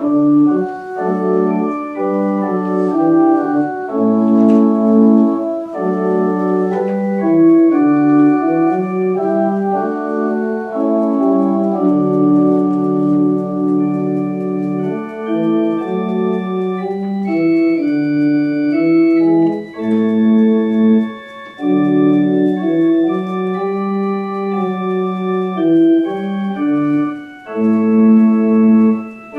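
Organ playing slow held chords that change every second or so, with short breaths between phrases about two-thirds of the way through and near the end.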